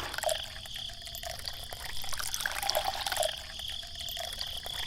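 Water trickling and splashing, with many small irregular drips and plops.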